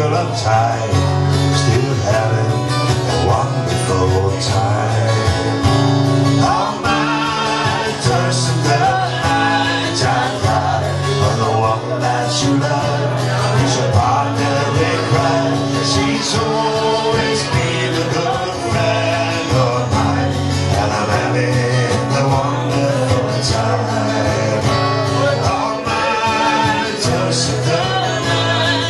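Two acoustic guitars strummed together in a live duet, with a woman singing over them.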